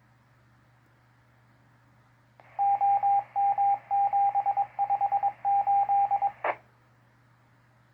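Morse code sent over the dispatch radio: a single steady tone keyed on and off in short and long marks for about four seconds. It ends with a short burst of static as the transmission closes, over a background of radio hiss and low hum.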